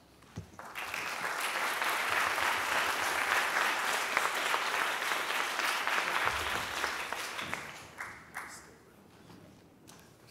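Audience applauding. The applause builds within the first second, holds steady, and dies away about eight seconds in.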